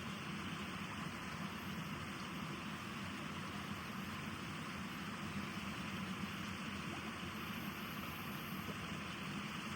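Waterfall running under a partial ice cover: a steady rush of falling water.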